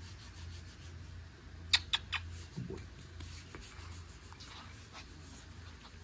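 Three quick kissing smacks about two seconds in, followed by soft rubbing and scraping sounds.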